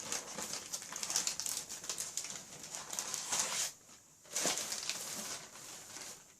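Packaging rustling and crinkling as a soft fabric toy playhouse is unpacked, in uneven stretches with a short pause about four seconds in.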